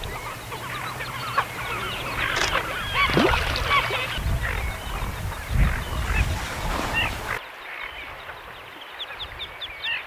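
A dense chorus of many waterbirds calling at once, short overlapping calls; about seven seconds in the sound changes abruptly to a quieter background with sparser short chirps.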